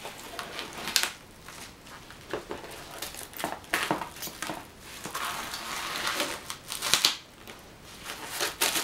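A delivery package being opened by hand: cardboard and packing material rustling and crinkling, with a longer hissing scrape partway through and a few sharp clicks and knocks.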